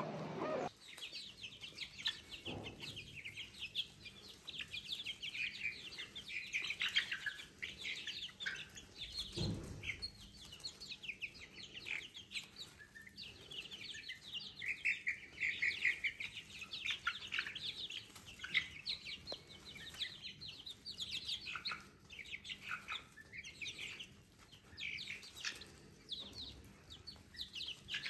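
A flock of young mixed-breed chicks peeping constantly, many short, high, downward-sliding peeps overlapping one another.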